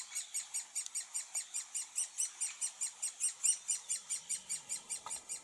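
Woodpecker nestlings calling from inside a nest hole in a tree trunk: an unbroken, rapid series of short, high-pitched cries, about five a second.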